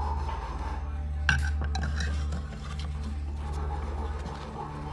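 Steel knife blade scraping and clinking against a metal plate and mold frame while prying a cured silicone rubber mold loose, with a sharp click about a second in. A steady low hum runs underneath.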